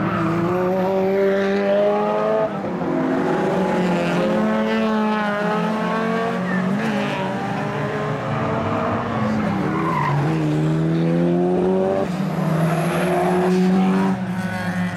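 Several race car engines accelerating hard past the camera, with their notes climbing through the revs and dropping back at gear changes. More than one car is heard at once, and the sound is loudest just before the end.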